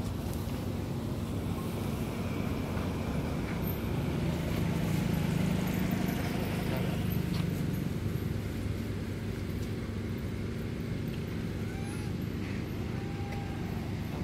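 A motor vehicle's engine running nearby: a steady low hum that swells a little in the middle.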